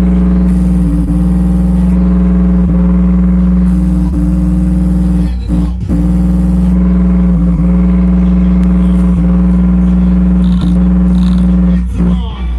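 Subwoofer playing a loud, sustained deep bass drone during a bass test, buzzy with a steady stack of overtones.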